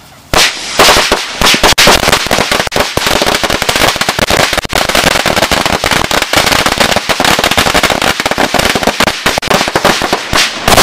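A firecracker celebration roll going off: about a third of a second in, rapid bangs start and keep crackling without a break, with a few louder reports among them.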